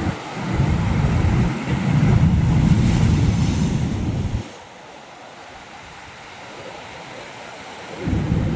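Ocean surf washing on a rocky beach, with gusts of wind buffeting the microphone as a loud low rumble that lasts about four seconds, then cuts off, and comes back briefly near the end.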